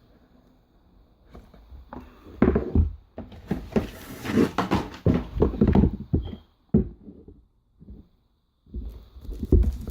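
Smartphone retail box being opened and handled by hand: irregular rustling, scraping and light knocks of cardboard and packaging, in bursts after a quiet start, with a short silent gap near the end.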